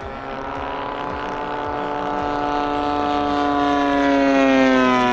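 Propeller engine of a large-scale radio-controlled model warbird on landing approach: a steady drone that grows louder as the plane comes in low over the runway, its pitch sliding down near the end as it passes and settles to land.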